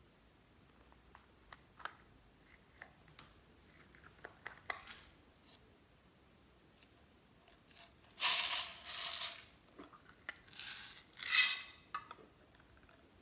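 Light clicks and taps of hard plastic items being handled, then two loud bursts of rattling, about eight and ten seconds in, of small hard pieces shaken in a small plastic container.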